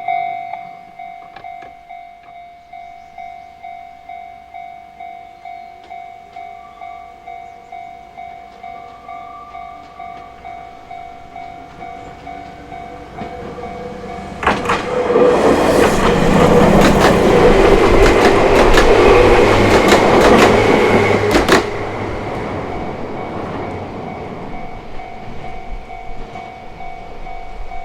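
Japanese level-crossing warning bell ringing in a steady repeating pattern, about two strikes a second. About halfway through, a Chichibu Railway electric train passes over the crossing for around seven seconds, with loud wheel-on-rail noise and clicks as the wheels cross the rail joints. The bell rings on after the train has gone.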